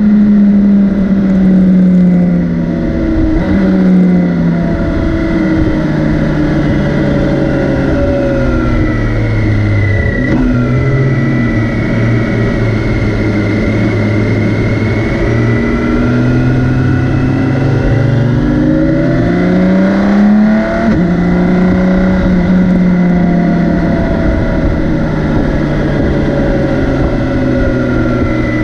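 BMW K 1600 B's 1,649 cc inline-six engine running under way, its pitch climbing with the revs and dropping sharply at each gear change, twice near the start and once about two-thirds of the way through.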